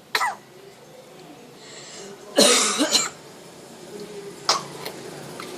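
Parrot mimicking human coughing: a short cough at the start, two loud coughs in quick succession about two and a half seconds in, and a brief one near the end.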